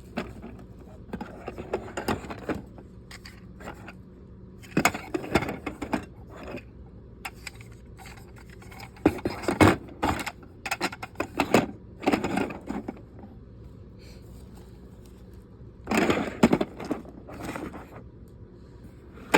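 Small hard objects being handled and set down: irregular clusters of clatters, knocks and scrapes, with quiet gaps between them and a faint steady hum underneath.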